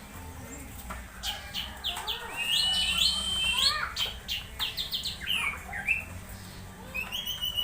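Orange-headed thrush singing a varied, jumbled song: quick whistled phrases and pitch glides, bursts of rapid clicking notes, and one level whistle held for about a second, two and a half seconds in.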